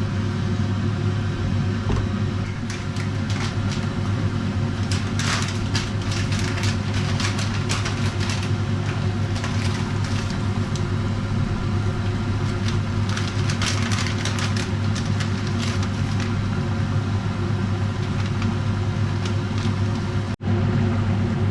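Steady low machine hum in a kitchen, with a pot of ragu simmering on low heat and spitting in two spells of quick crackles, about five and thirteen seconds in.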